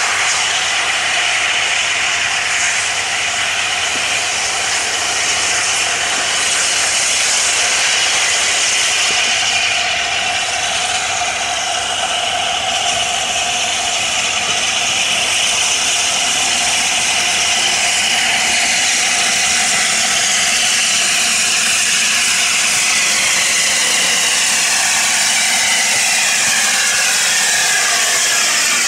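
LNER A4 Pacific steam locomotive No. 4464 Bittern running into a station with its train, a steady hiss of steam and wheels on the rails. A set of falling tones comes in over the last ten seconds as the engine draws alongside.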